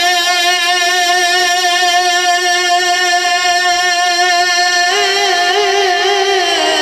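Man singing into a microphone through a PA, holding one long wavering note for about five seconds, then moving to a new pitch near the end.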